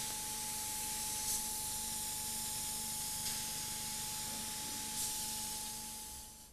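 Paint spray gun on a spray-painting robot hissing steadily as it sprays, with a steady faint tone underneath; the sound fades out near the end.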